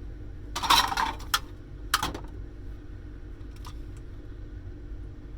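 Parts of a dismantled cash register being handled: a rattling clatter about a second in, a shorter knock about two seconds in and a faint tick later, over a steady low hum.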